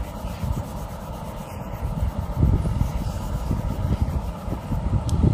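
Colour pencil shading on paper: quick, irregular back-and-forth rubbing strokes.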